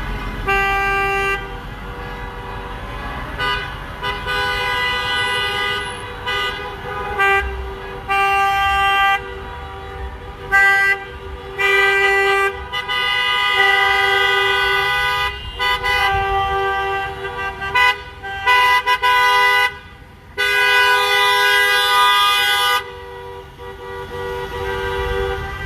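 Car horns honking over and over from passing cars, a mix of short toots and longer blasts of a few seconds, over the rumble of passing traffic.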